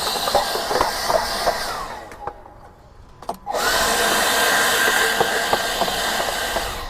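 A small electric blower runs at full speed: rushing air with a steady motor whine. About two seconds in it is switched off and winds down. About a second and a half later it spins back up and runs again, then starts to wind down near the end.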